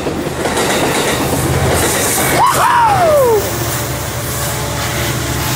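Amtrak Pacific Surfliner passenger train running past, with a steady rail noise and clatter and a low steady engine hum. Near the middle a short call rises and then falls in pitch across it.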